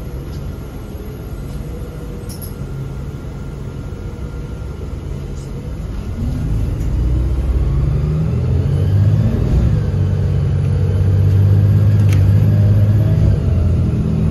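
Inside a MAZ-203 city bus under way: engine and road noise, the engine note rising as the bus picks up speed about halfway through, then running louder and steady.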